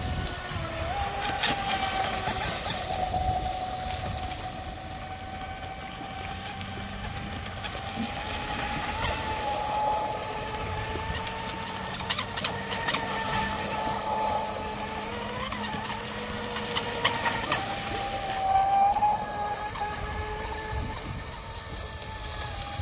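Pro Boat Sonic Wake RC boat's brushless electric motor whining at speed as the boat circles on the water. The pitch rises and dips a little with the throttle, and a few sharp clicks come through.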